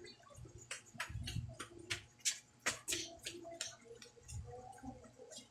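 Joints in the back cracking and popping under a hilot massage: a rapid, irregular run of about fifteen sharp clicks over four seconds, with a few soft low thumps from the pressing hands.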